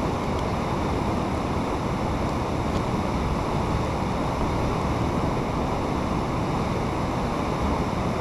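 Fast-flowing channel water rushing steadily, an even noise with no breaks.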